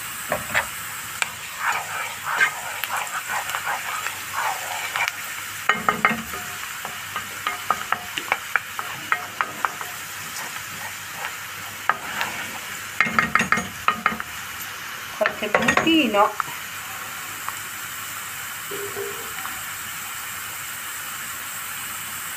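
Chopped onion and tender artichoke stems sizzling steadily in oil in a nonstick frying pan, while a wooden spoon stirs them and clicks and scrapes against the pan in spells. The stirring stops for the last several seconds, leaving only the steady sizzle.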